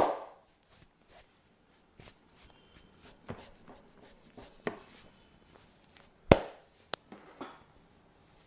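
Hands striking the body during a massage: a handful of sharp smacks, the loudest right at the start and another about six seconds in, with softer pats between.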